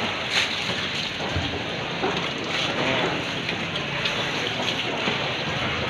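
Steady hiss of falling or splashing water, with a few short knocks scattered through it.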